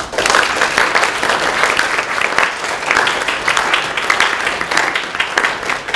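An audience of students clapping in applause, starting suddenly and keeping up steadily.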